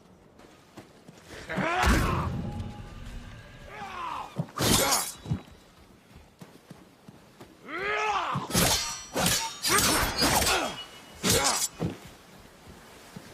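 Katana sword combat sounds: a series of blade swings, each with a whistle that rises and falls in pitch, and sharp metallic clashes with a ringing tail, coming in a quick cluster in the second half.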